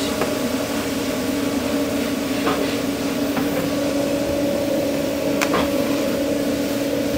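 Steady electric hum of food truck kitchen machinery, with a second, higher tone joining about four seconds in and a couple of faint clicks.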